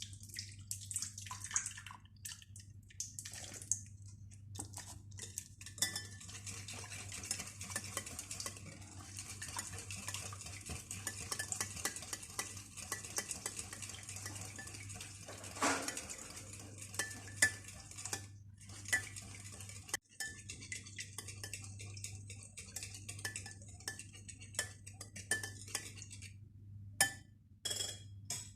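A utensil stirring and scraping around a mixing bowl, with frequent clinks against the sides, as milk is mixed into the cake batter.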